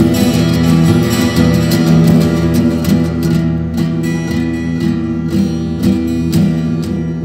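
Soundtrack music led by strummed acoustic guitar, with the strokes coming thick and fast and easing off a little in the second half.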